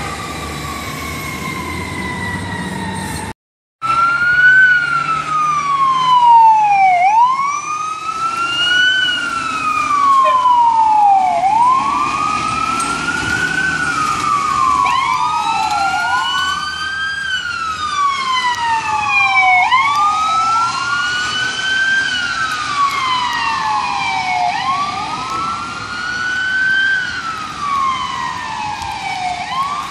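Sirens of responding fire trucks wailing: two wails rising and falling out of step with each other, about one cycle every four to five seconds. Before them, a single slowly falling siren tone cuts off abruptly about three seconds in.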